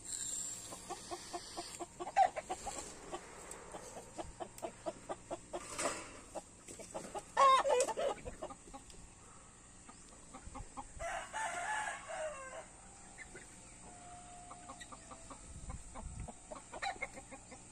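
Free-range chickens clucking, with a rooster crowing partway through.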